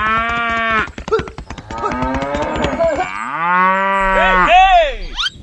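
Cattle mooing: a short moo at the start, then a long moo from about three seconds in that rises and falls in pitch, over a rapid clatter of clicks in the first half.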